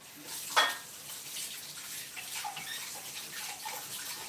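Water running steadily from a kitchen tap, with one sharp clack about half a second in.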